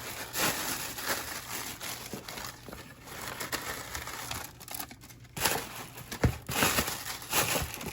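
Shipping packaging being handled and pulled apart by hand: irregular crinkling and tearing, with a short lull about five seconds in.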